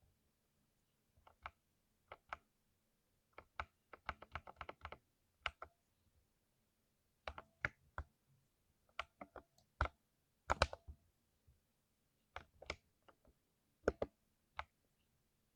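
Typing on a 60% mechanical keyboard with lubed switches: irregular clusters of keystroke clacks with short pauses between.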